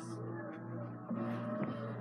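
Television commercial playing in the background: music with a little speech, over a steady low hum.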